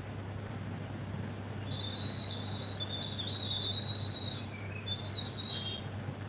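A high, wavering whistle-like squeal that starts about two seconds in and stops near the end, over a steady low hum.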